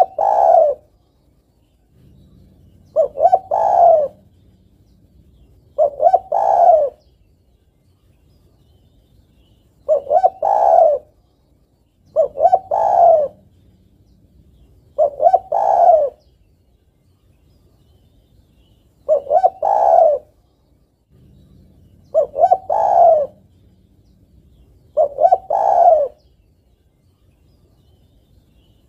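Female spotted dove cooing its call to a male. Each phrase is a couple of quick notes and then a longer coo, repeated about every three seconds.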